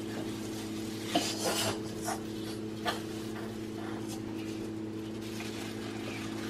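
Plastic sheeting rustling and crinkling as it is handled and peeled off a freshly pressed corn tortilla on a tortilla press. The short rustles come in a cluster about a second in and again near three seconds, over a steady low hum.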